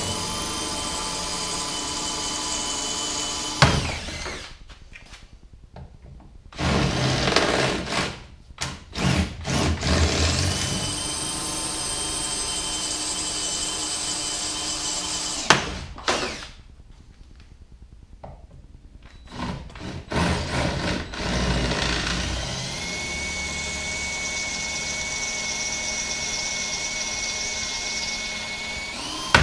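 Cordless drill drilling out the bolts in an aluminum boat's transom, in three long runs of several seconds each with short pauses between. Each run rises quickly to a steady whine under load, and the first two end on a sharp click.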